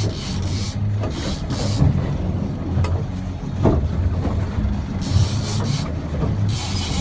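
Boat engine running steadily at low speed, a low even hum, with rough water and wind noise rising and falling over it and a few light knocks.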